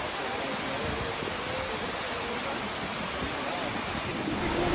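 Steady rush of falling water from a waterfall, with faint voices of people mixed in.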